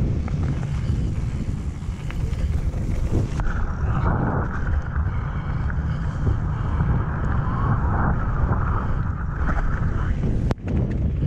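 Wind buffeting the camera microphone on a fast mountain-bike descent, over the rolling noise of tyres on a wet gravel trail. A brighter hiss comes in a few seconds in and fades about ten seconds in, and the sound dips for a split second shortly after.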